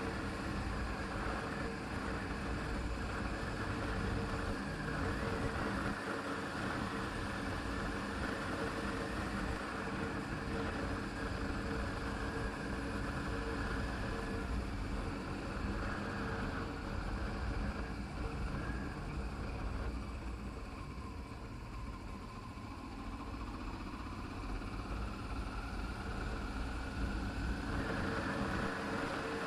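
Motorcycle engine running steadily on the move, with wind and road noise. It eases off about twenty seconds in and picks up again near the end.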